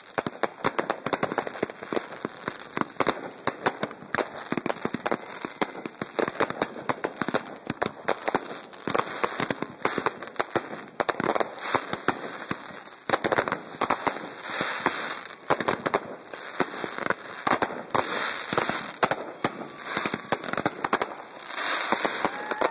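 Aerial fireworks display: a dense, unbroken string of bangs and crackles from bursting shells, many reports a second. In the second half the crackling grows stronger as crackling stars go off.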